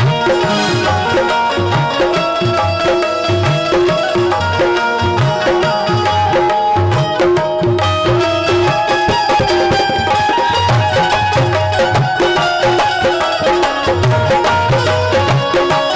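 Instrumental interlude of a Hindi devotional song: tabla keeps a steady rhythm, its bass drum strokes bending up in pitch, under a sustained melody.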